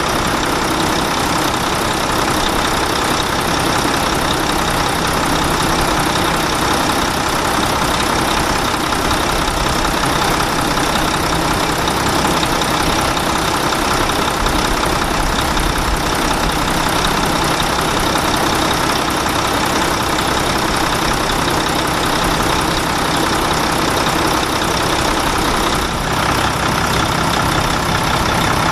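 Truck engine running steadily at a constant speed, with no revving.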